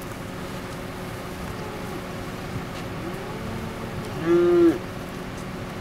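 A cow moos once, loudly, about four seconds in, with fainter moos from the herd a little before it, over the steady hum of an idling vehicle engine.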